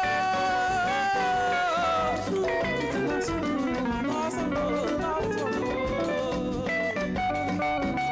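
Music: an electric guitar plays a melodic passage of long held notes with sliding, wavering notes between them.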